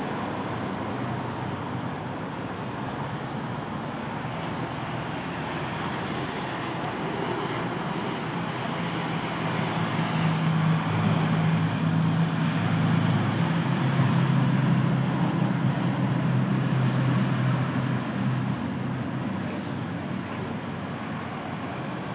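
Street traffic: a steady wash of passing vehicles, with one louder vehicle's low engine hum building from about ten seconds in and fading away near the end.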